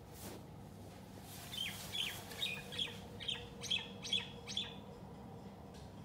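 A cat chattering at a bird: a quick run of about nine short, high chirps, roughly three a second, that starts about a second and a half in and stops near the five-second mark.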